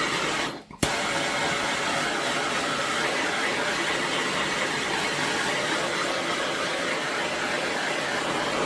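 Heat gun blowing hot air with a steady rushing hiss, played over 3D-printed plastic parts to melt away stringing and clean them up. It cuts out briefly and starts again with a click just under a second in, then runs on evenly.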